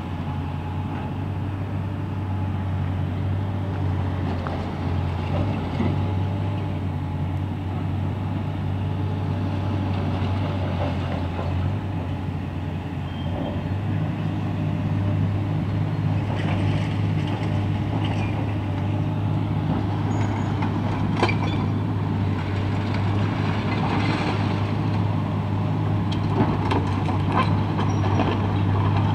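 Tracked hydraulic excavator's diesel engine running steadily with a low hum while it works brick and concrete rubble. Scattered knocks and clatters of falling and shifting debris, more frequent in the second half.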